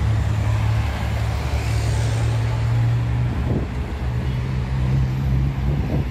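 Steady low hum of a running engine under a constant hiss, with two brief rising sounds about three and a half seconds in and near the end.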